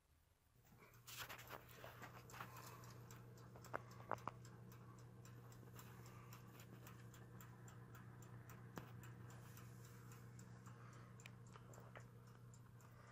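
Black+Decker toaster oven running: a faint steady hum with the quick ticking of its mechanical timer, and a few louder clicks about four seconds in.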